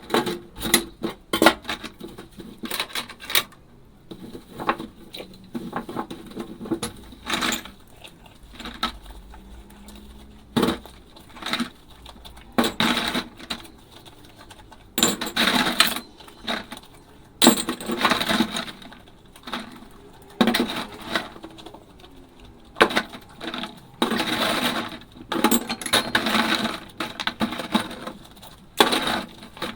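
Dishes clinking and clattering during hand dishwashing in a sink: irregular knocks and short runs of clatter, some ringing briefly, with a few longer noisy stretches of handling.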